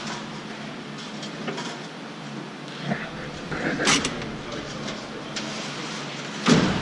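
Repair-shop background noise: a steady hum with a few sharp clanks, the loudest near the end.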